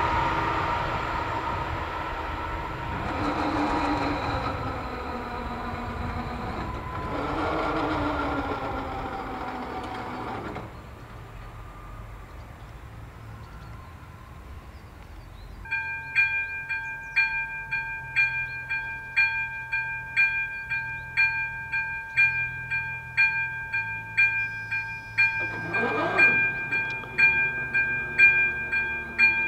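A train passes a level crossing with a rushing rumble and shifting squealing tones, ending about ten seconds in. About halfway through, the crossing's electronic warning bell starts ringing at about two strokes a second, warning of an approaching train as the barriers go down.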